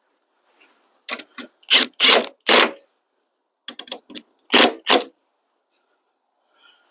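Hand ratchet wrench tightening the 10 mm bumper bolts: short ratcheting bursts in several groups, with pauses between the groups.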